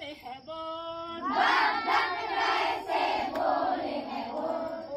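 A single voice sings a short line, then about a second in a group of children joins in, singing loudly together in a call-and-response action song.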